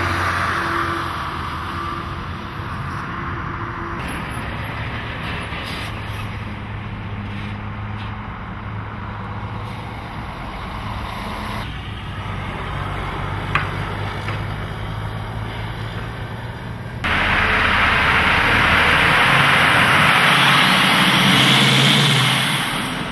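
Diesel semi trucks hauling shipping containers drive through a gate, their engines running with a steady low hum. The sound changes abruptly a few times and grows loud for the last five seconds or so as a truck passes close.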